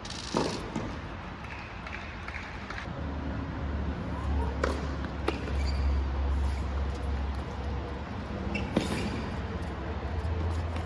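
Tennis ball being struck and bouncing: a few sharp pops spaced seconds apart, the loudest about nine seconds in, over a steady low rumble.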